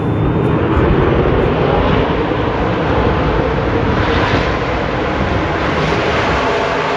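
Loud, steady engine noise from NASCAR Craftsman Truck Series race trucks running at speed on the track, swelling slightly about four seconds in.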